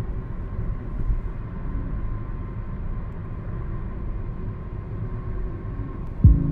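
Low, steady rumbling background noise with a faint steady hum above it. Near the end a sudden deep thump lands and a low held tone begins.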